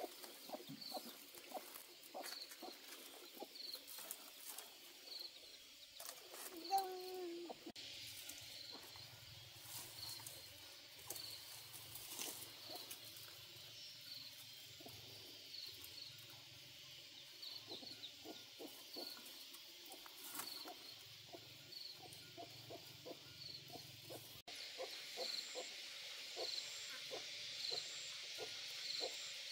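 Night insects chirping: a short high chirp repeating about once a second, joined by a second, higher pulsing chirp near the end, over scattered soft clicks and knocks.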